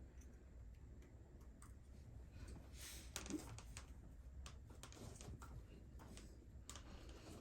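Faint, scattered clicks and ticks of an Allen wrench and small screws being worked on a plastic RC car axle housing, over a low steady hum.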